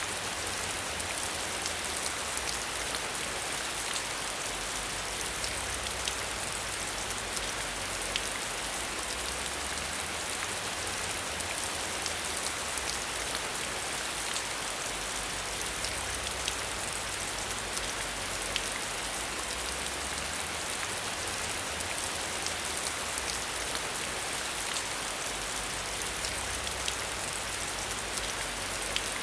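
Steady rain falling, an even hiss dotted with many small drop ticks, heard as if from behind a window.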